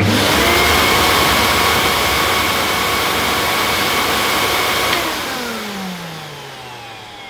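Miele S126 stick vacuum cleaner's 800-watt motor switched on at the wall, starting at once and running steadily with a whine, blowing out a lot of dust on this first run. About five seconds in it is switched off and winds down, its pitch falling away. The motor sounds very nice to its owner, with nothing wrong with it.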